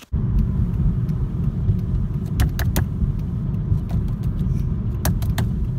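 Steady low rumble of a car driving along a road, heard from inside the cabin, with a few light clicks.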